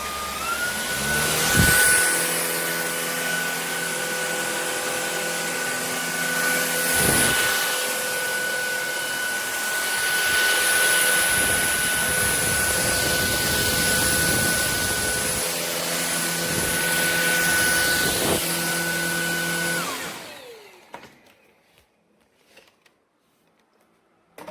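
Shark Detect Clean & Empty cordless vacuum cleaner's motor running with a steady whine and rush of air, rising to speed just after the start. A few sharp knocks come through while it runs. Near the end the motor switches off, its whine falling away to quiet.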